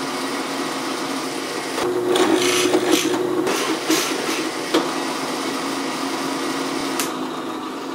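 Drill press motor running steadily, its bit boring into a wooden board for a second or two starting about two seconds in, followed by a few sharp knocks of wood as the board is handled and pulled from the jig.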